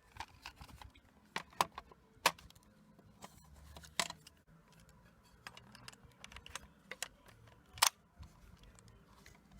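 Hand handling noise of small plastic and metal parts: irregular light clicks and rattles, with a few sharper clicks, the loudest near the end.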